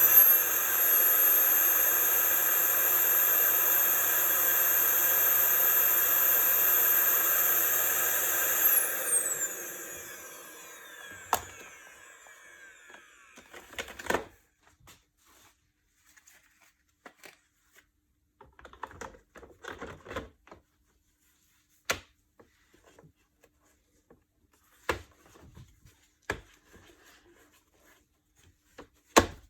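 Electrolux Pure D8.2 vacuum cleaner motor running with a high whine, then shutting off about nine seconds in, its whine falling as it spins down. Scattered clicks and knocks follow.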